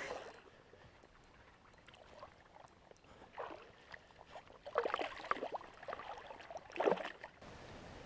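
Hooked smallmouth bass splashing at the water's surface as it is played in: a cluster of splashes about five seconds in and another shortly before the end, with faint water sound between. Near the end, a steady hiss.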